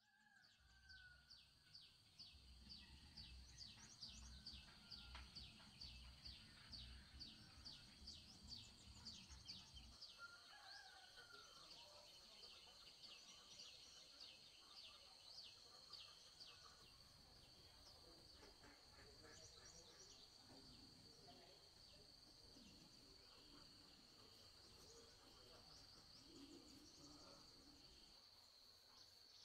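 Faint forest ambience: an insect's rapid high chirps, about two to three a second, are joined before the middle by a steady high insect buzz that holds to the end. A few bird calls sound beneath.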